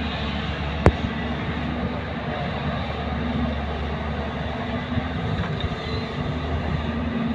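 Steady hum of a JCB excavator's diesel engine as it works its boom and bucket, with one sharp knock about a second in.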